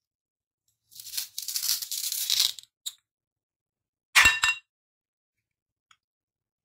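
Velcro on a toy plastic vegetable being peeled apart, a rasping tear lasting about a second and a half. A few seconds later the plastic pieces drop into the bowl with two quick clinks.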